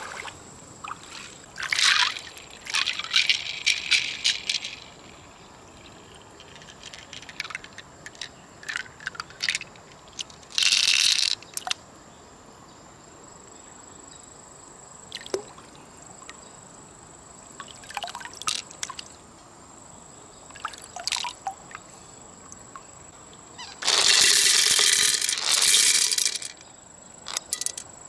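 Shallow river water splashing and trickling in short bursts as hands dip and rinse an opened freshwater mussel shell. Near the end comes a louder pouring rush lasting about two seconds.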